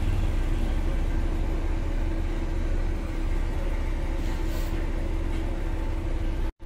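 Diesel tractor engine running steadily with a low rumble as it pulls a tipping trolley of manure across soft ground. The sound drops out for an instant near the end.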